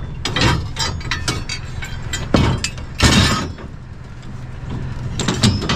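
Heavy scrap pieces being handled and set down, clanking and knocking, with a louder clatter about three seconds in, over a steady low hum.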